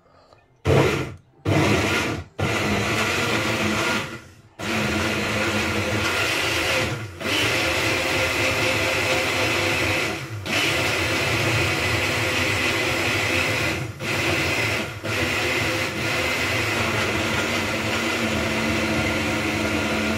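Countertop blender puréeing onions: two short pulses about a second in, then running steadily, with a pause around four seconds in and a few brief dips later.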